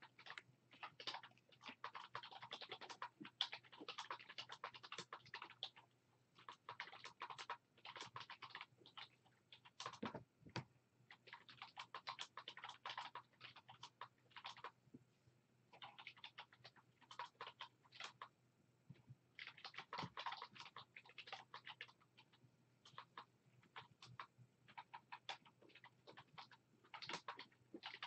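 Computer keyboard being typed on in quick runs of clicks, a few seconds at a time with short pauses between runs, over a faint low hum.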